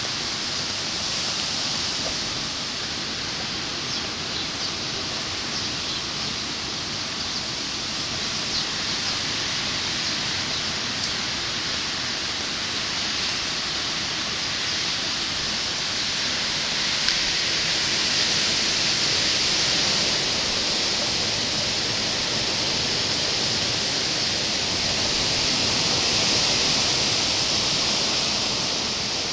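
Hurricane wind and rain in the trees: a steady rushing hiss that swells about two-thirds of the way through and again near the end.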